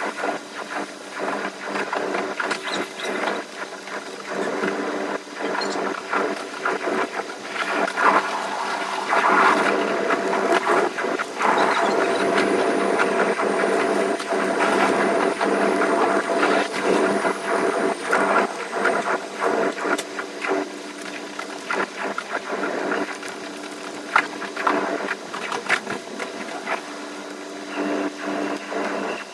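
Electric limited express train running on the rails, heard from on board with the playback sped up: a steady running hum with a thick patter of wheel and rail clicks. A thin high squeal sounds through the middle.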